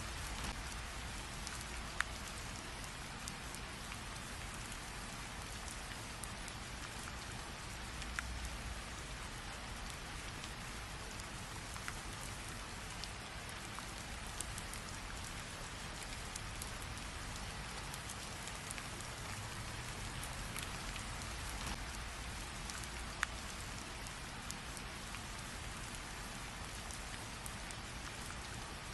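Steady rain falling in an even hiss, with now and then a single louder drop striking close by.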